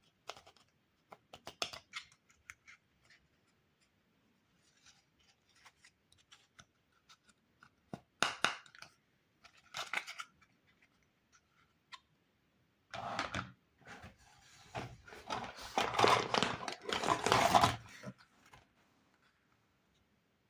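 Toy packaging being handled: scattered small clicks and plastic rustles, then a louder stretch of rustling and tearing in the second half lasting about five seconds.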